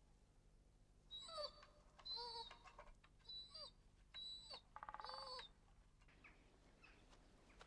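An animal calling five times in quick succession, each call short and thin and rising then falling in pitch, with near silence between them.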